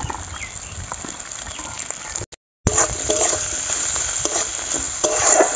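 Peeled lotus seeds sizzling in hot mustard oil and spice paste in a metal wok (kadai), stirred with a metal spatula that scrapes the pan. The sound breaks off for a moment a little before halfway, then comes back louder.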